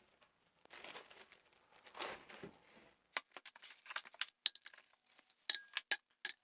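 Plastic wrapping crinkling and rustling around a block of candle wax, then from about three seconds in a quick run of small sharp clicks and clinks as broken pieces of wax are handled.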